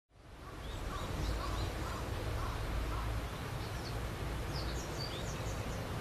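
Mountain river ambience: a steady rushing noise of flowing water, fading in at the start, with small birds giving short high chirps twice in a few scattered bursts.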